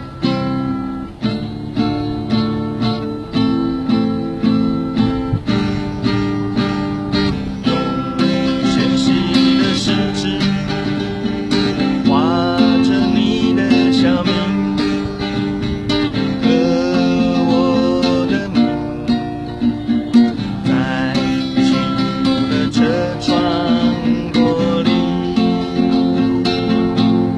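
Acoustic guitar strummed in a steady rhythm, an instrumental break between sung lines of a slow song.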